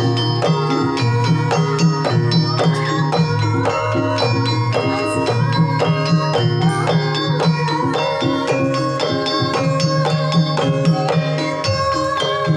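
Javanese gamelan music: an ensemble of struck metallophones with a steady, dense pulse of ringing notes.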